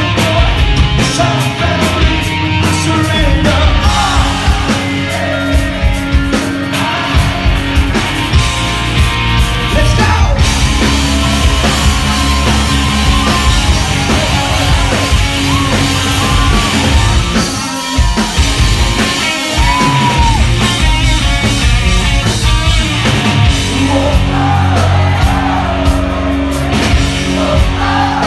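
Live rock band playing loud, with electric guitars and drums, and a male lead vocalist singing.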